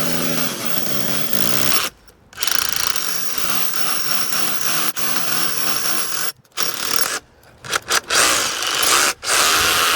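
Power drill boring through an external brick wall, running in several stretches with short pauses about two seconds in, about six and a half seconds in, and twice near the end.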